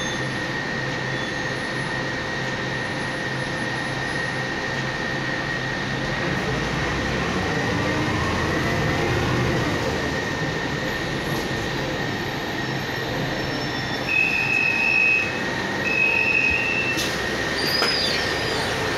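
Cabin noise inside a moving Zhong Tong articulated city bus: a steady rumble of engine and road with a constant high whine. Near the end two short beeps sound, followed by a sharp clatter and squeaks as the bus comes into its stop.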